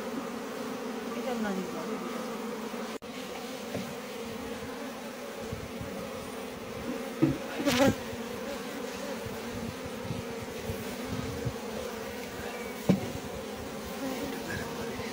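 A honeybee colony in an opened hive buzzing steadily as a dense, even hum. A few sharp knocks come about halfway through, and another comes later.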